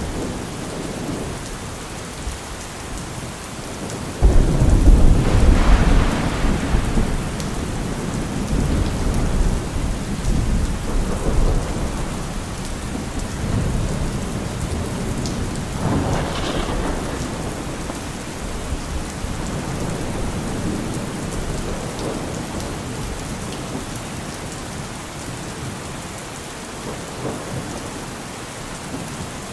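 Heavy rain falling steadily through a thunderstorm. A sudden loud thunderclap breaks about four seconds in and rumbles on for several seconds, and a second, weaker peal comes about sixteen seconds in.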